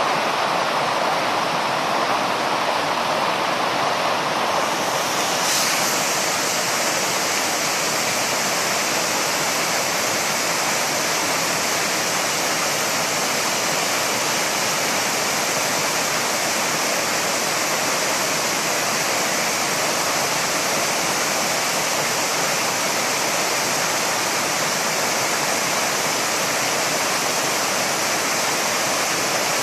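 Waterfall: a steady, loud rush of falling water. About five seconds in, the sound turns brighter and more hissing, then stays even.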